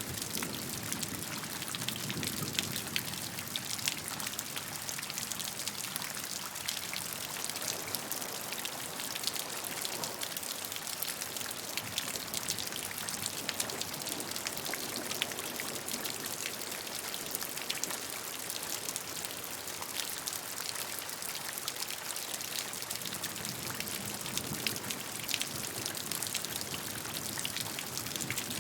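Steady rainfall, many drops pattering on a surface, with a softer rush of flowing water beneath that swells and fades.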